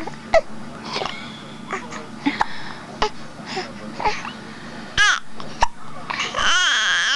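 A young girl hiccuping several times, each hiccup a sharp short gasp, with wordless whiny babbling between them and a longer drawn-out whine near the end.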